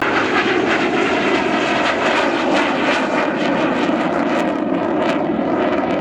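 Aircraft engine noise of a display plane flying low overhead, loud and steady, cutting in abruptly at the start.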